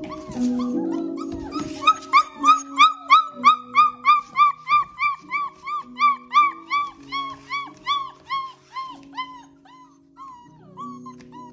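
A poodle puppy yipping in a long, even series of short high-pitched yips, about three a second, starting about two seconds in and slowing and fading near the end. Background music with sustained low notes plays underneath.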